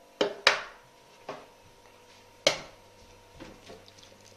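Eggs knocked against the rim of a mixing bowl to crack them: four sharp knocks, two close together near the start, one about a second in and a loud one halfway through, then a few faint crackles of shell.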